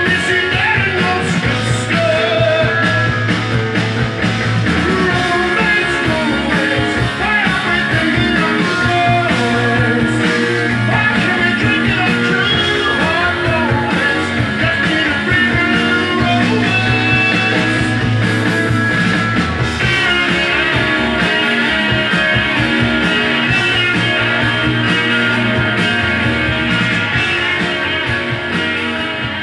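Rock song with electric guitar and singing, played from a vinyl record on a Sansui FR-3060 belt-drive turntable, getting slightly quieter near the end.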